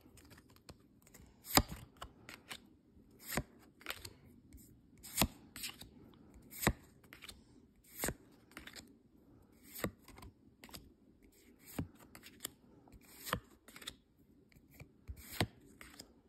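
Pokémon trading cards being flipped through one at a time by hand, each card snapped off the stack with a sharp flick, about ten of them, one every second or two, with lighter card rustles between.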